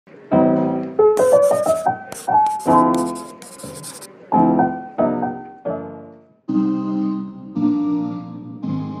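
Intro music led by piano: struck chords that each fade away, with a short run of rising notes near the start and a high shimmer over the first few seconds. After a brief gap about six and a half seconds in, a steadier, more sustained keyboard passage follows.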